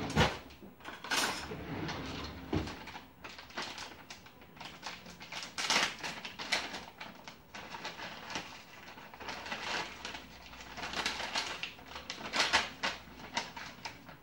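A kitchen drawer being rummaged and knocked near the start, then short irregular rattles and taps in scattered clusters as spice shakers are handled and shaken over raw hamburger patties.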